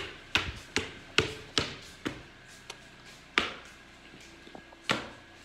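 Footsteps climbing stairs: a quick run of six thuds, about one every 0.4 s, then two more spaced-out steps later on.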